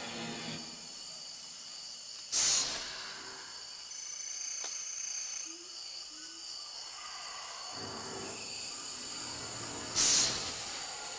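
A large, prickly, flightless stick insect (phasmid) rattling its wing covers twice as a defensive warning: two short, loud, dry rattles about seven and a half seconds apart.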